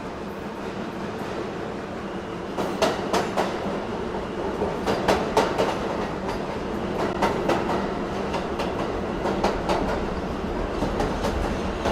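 Subway train running, heard from on board: a steady rumble with wheels clacking over rail joints. The clacks start about two and a half seconds in and come in quick clusters, and the rumble grows louder as the train gathers speed.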